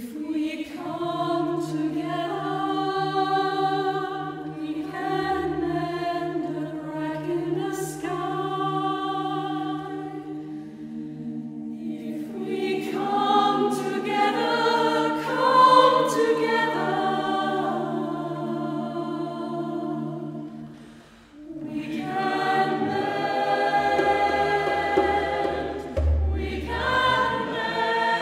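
Mixed chamber choir singing in a church, holding long chords in several parts, with a short break between phrases about 21 seconds in.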